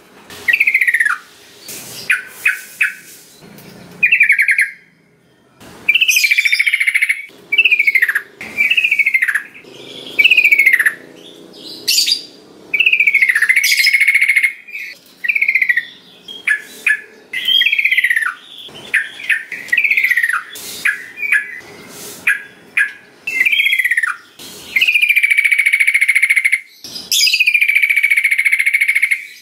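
Sooty-headed bulbul (trucukan) singing: a lively run of short, bright notes that slide downward, mixed with quick chips and several longer held notes.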